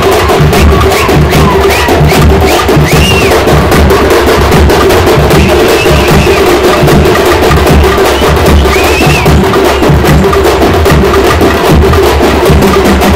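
Loud, fast festival drumming, a dense run of beats with a steady held tone sounding beneath it.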